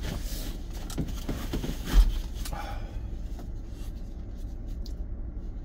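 Paper tissue rustling as it is pulled out and handled, with one thump about two seconds in, over a steady low hum.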